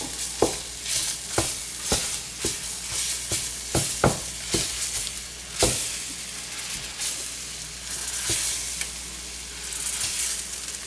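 Pan gravy sizzling and bubbling in a frying pan while a utensil knocks and scrapes against the pan, breaking a fried burger patty into chunks. The knocks come about twice a second at first and thin out in the second half.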